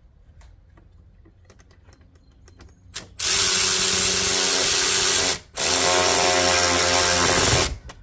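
Cordless electric ratchet with an 8 mm socket, running in two bursts of about two seconds each with a short pause between them, tightening the hose clamp on a cold air intake's air filter. A few light clicks of handling come before it.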